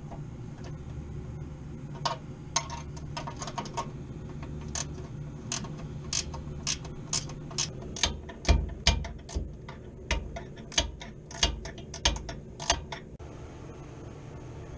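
Hand tools working on a blower motor mount: a ratchet wrench tightening bolts, with clicks about twice a second and heavier metal knocks in the second half, over a steady low hum.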